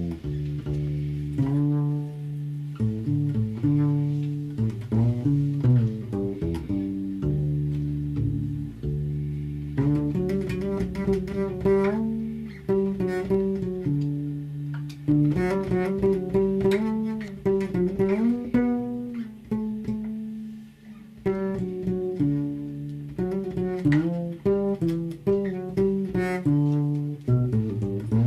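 Acoustic improvised music: a guitarron plucks deep bass notes under mandocello and a drum kit played lightly, with no singing.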